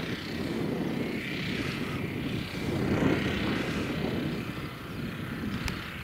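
Wind buffeting the camera microphone: a low, gusty rumble that swells and fades, with a sharp click near the end.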